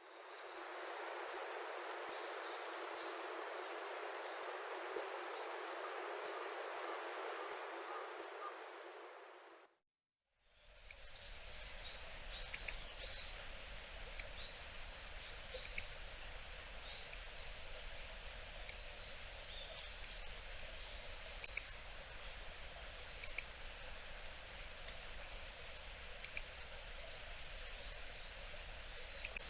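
Hawfinch giving short, sharp, high 'tzik' calls, some single and a quick run of several about six to eight seconds in. The sound drops out for a second or two near the ten-second mark, then the calls come singly and evenly, about one every second and a half, over a faint hiss.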